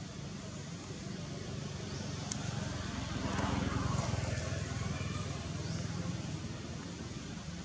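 A motor vehicle passing, its engine noise swelling to a peak a few seconds in and fading again over a steady low hum.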